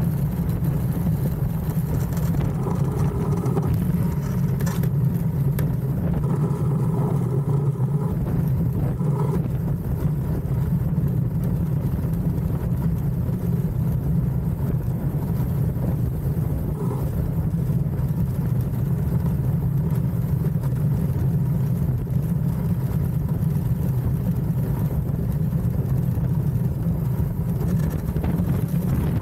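DN-class iceboat sailing fast over ice: a steady low rumble of the runners on the ice, with wind rushing past.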